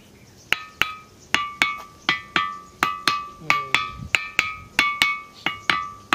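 A large ringing boulder (a musical 'drum stone') struck repeatedly with a small hand-held stone, in a quick, even drumming rhythm of about three strikes a second. Each strike gives a sharp knock with a clear, bell-like ringing tone that dies away before the next. The strikes start about half a second in.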